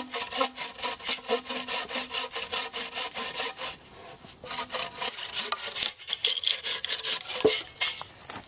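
Wooden-framed bow saw cutting through a green wooden pole in quick, even back-and-forth strokes, with a brief pause about four seconds in before the sawing resumes.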